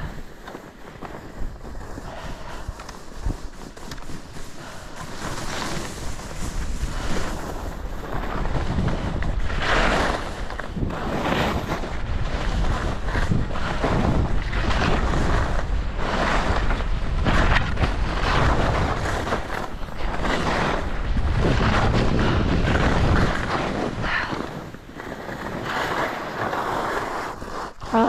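Skis hissing and scraping through snow in a run of turns that surge about once a second, under heavy wind buffeting on a GoPro's microphone. The swishing dies down a few seconds before the end as the skier slows.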